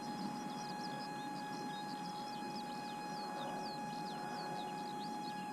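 Small birds chirping, many quick short notes, over a steady high-pitched whine and a low hiss.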